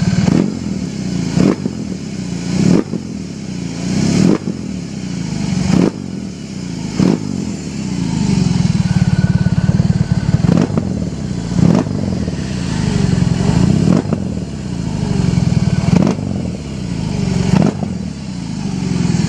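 BMW R18's 1800 cc boxer twin running through handmade stainless-steel slip-on mufflers, the throttle blipped repeatedly, a rev every second or two that falls back towards idle, with a longer steadier stretch around the middle.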